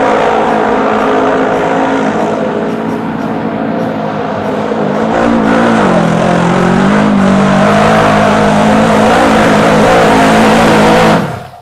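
Side-by-side UTV engine running at high revs under load as it climbs a steep dirt hill. The revs sag briefly about halfway through and pick back up.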